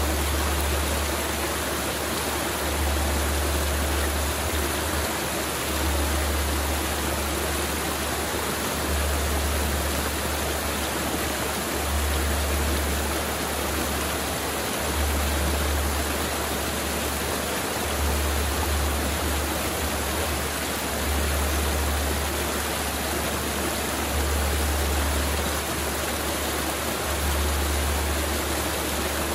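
Mountain river flowing, a steady rush of water, with a low rumble that swells and fades about every three seconds.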